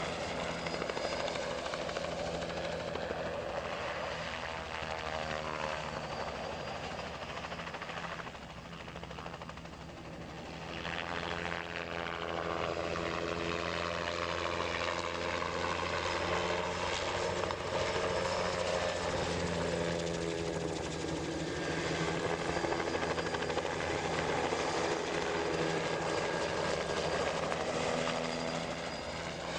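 Bell 206B-3 JetRanger helicopter flying: its two-bladed main rotor and Allison turboshaft engine run steadily. The sound fades a little about a third of the way in, then grows louder again as it comes back near.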